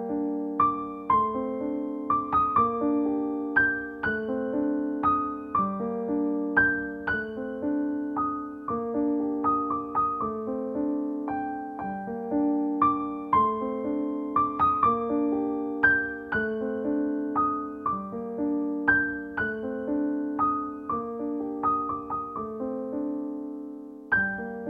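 Background piano music: a slow melody of single struck notes over lower notes, repeating a short phrase.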